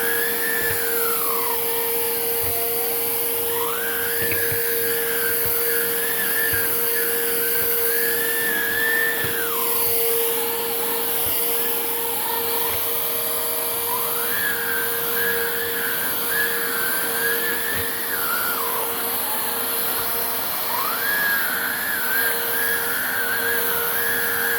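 Hoover React cordless vacuum running as a handheld, a steady motor hum under a high whine. The whine falls in pitch and climbs back three times.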